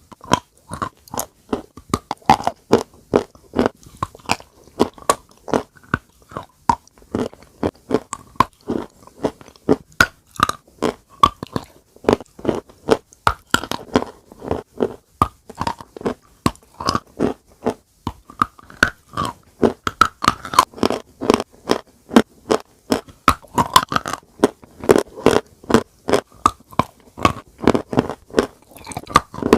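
Close-miked biting and chewing of eating chalk with a creamy paste: dense, sharp crunches following one another in quick, irregular succession.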